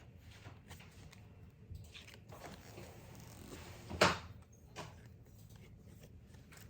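Quiet room with faint rustling and one short, sharp knock about four seconds in, followed by a softer tap a moment later.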